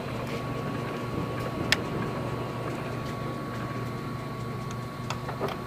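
Stanko 1A983 hollow spindle engine lathe running under power, a steady machine hum with a thin steady whine. A few sharp clicks sound over it, the loudest about one and a half seconds in.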